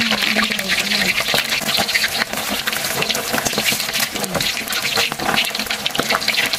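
A slab of pork deep-frying in very hot vegetable oil in a wok, the oil sizzling and crackling steadily around the meat.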